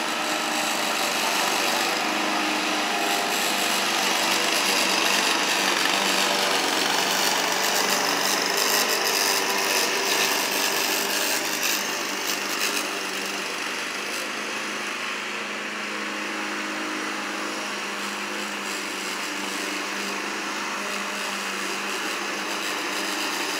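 Walk-behind petrol lawn mower engine running steadily while mowing grass, a little quieter from about halfway through.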